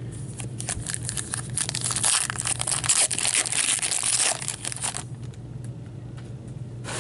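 A foil trading-card pack wrapper being torn open and crinkled by gloved hands, a dense crackling that runs for about five seconds and then stops.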